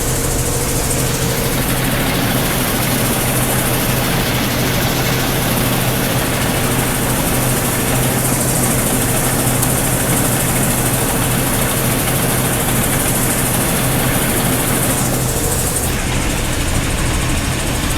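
Combine harvester running steadily with its engine and threshing machinery going, a constant drone with a low hum.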